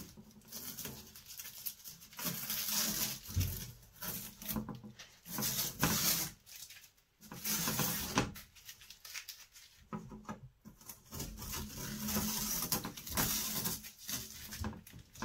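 Masking tape being peeled off the edge of a painted board, tearing in short irregular rips with brief pauses. The cheap tape comes away in bits rather than one clean strip.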